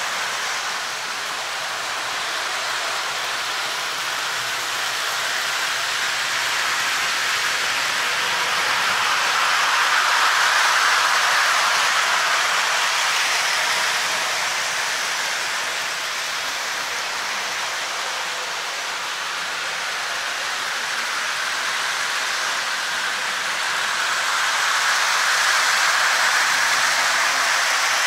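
Electric model trains running on their track loops: a steady rushing whir of wheels and motors. It swells louder about a third of the way in and again near the end.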